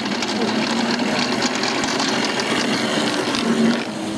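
Miniature ride-on locomotive pulling its passenger cars past at close range: a steady motor hum with fast, irregular clicking and rattling of the train running on the small-gauge track, which eases off near the end.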